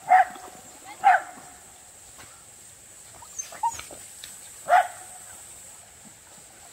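A dog barking in short, sharp, high yips: two barks about a second apart, then a couple of fainter yips, then another bark near the end.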